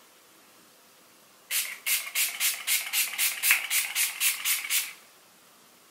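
Fine-mist pump bottle of Too Faced Hangover 3-in-1 setting spray pumped over and over, a dozen or so short hisses at about four a second, starting about a second and a half in.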